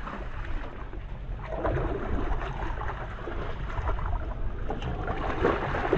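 A hooked striped bass thrashing at the surface beside the boat's hull, making irregular splashes over a steady rush of wind and water.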